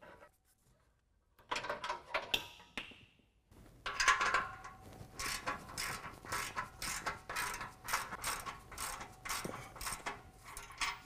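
A rubber exhaust isolator is worked off its hanger studs with a brief rubbing squeak. Then a hand ratchet with a 15 mm deep-well socket clicks in quick, repeated strokes as it loosens the nut on the exhaust band clamp.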